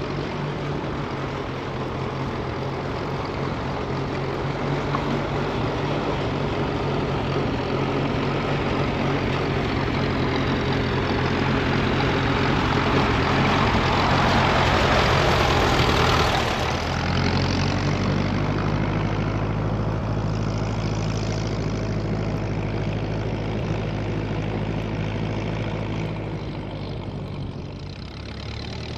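Tractor engine running steadily, growing louder through the first half and then dropping back to a steadier, quieter idle about seventeen seconds in.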